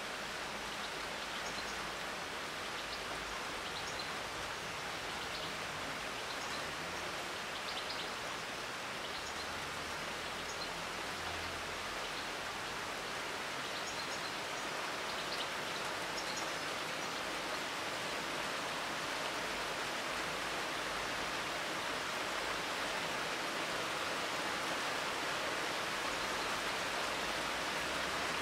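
Steady summer rain falling on tree foliage: a dense, even hiss, with a few faint high ticks in the first half and growing slightly louder toward the end.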